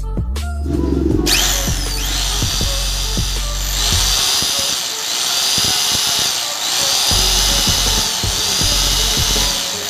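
Electric motor of a 5 kg demolition hammer switching on about a second in, whining up to speed and then running unloaded, its high whine swelling and easing about every two seconds. It runs on a newly fitted armature, field coil and carbon brushes and no longer sparks, running like new.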